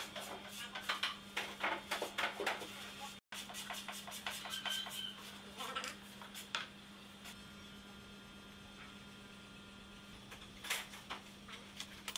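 Pencil hatching on a pine board: quick, scratchy back-and-forth strokes, most of them in the first few seconds, followed later by a few single knocks as the board and a steel ruler are handled, over a steady low hum.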